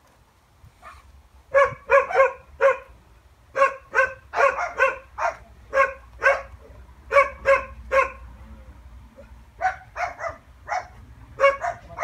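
A dog barking repeatedly: short barks, often two or three in quick succession, separated by brief pauses.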